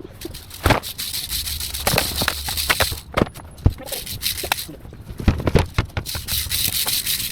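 Rustling and crackling of cut tree branches and leaves being handled, with many irregular sharp snaps and clicks.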